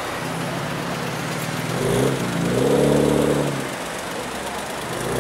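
BMW M3 F80's twin-turbo straight-six running loud through Akrapovic straight pipes, burbling at low revs as the car moves off. A brief blip about two seconds in, then a fuller rev that rises and falls around three seconds in, before it settles back to a low burble.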